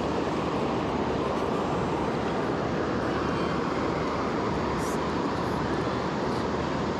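Steady rush of a river's current flowing over rocks and riffles.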